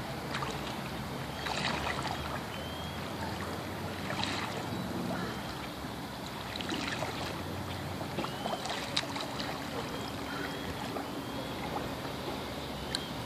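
Kayak paddle working the water in the in-water recovery stroke: the blade pulls, then slices back through the water, giving soft splashes every two to three seconds over a steady background hiss.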